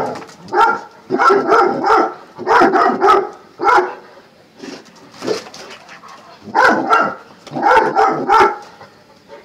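Dog barking repeatedly in short runs of two or three barks, with brief pauses between the runs.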